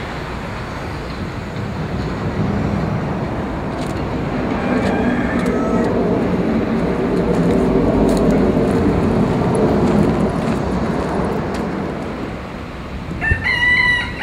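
A motor vehicle passes, its engine and road noise swelling to a peak about two-thirds of the way through and then fading. Near the end a rooster crows.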